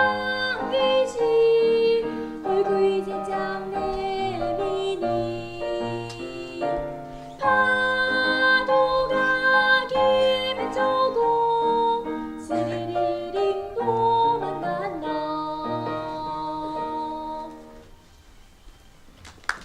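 Children's song with piano accompaniment playing through its final bars, with a girl's singing voice, and dying away near the end.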